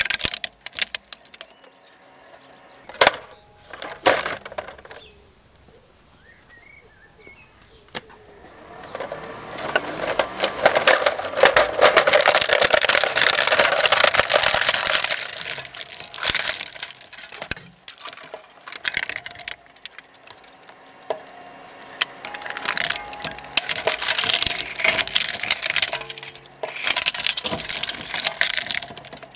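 Twin-shaft shredder's steel cutter discs crunching through a plastic RC car body and its wiring. A few sharp cracks near the start, a quieter lull, then long stretches of dense crackling and snapping plastic.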